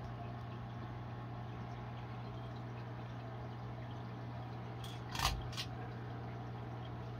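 Aquarium filtration running: a steady low hum with a constant trickle of water. A quick cluster of three clicks comes about five seconds in.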